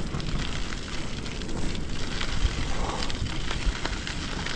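Wind rushing over the microphone of a bicycle coasting downhill: a steady rough rush with many small clicks and crackles through it.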